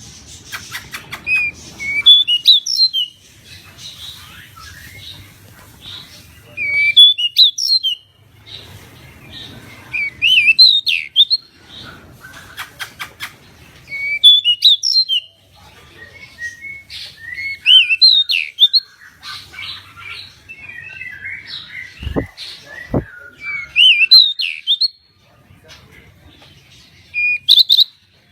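Pied bushchat (decu) singing: short loud phrases of quick, sweeping chirps repeated every three to four seconds, some with a fast rattle, and softer chatter between phrases. Two low thumps come about three quarters of the way through.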